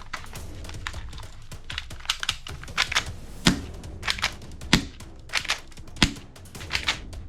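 A series of sharp clicks and snaps over a low steady hum. The loudest come about every second and a quarter in the second half, with lighter clicks between them.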